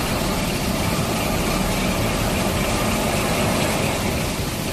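Toilet paper and kitchen towel rewinding machine running: a steady mechanical hum with a fast, even clatter.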